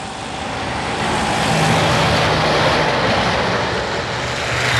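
Street traffic: a heavy vehicle passing, its noise swelling about a second in and holding, with a low steady engine hum.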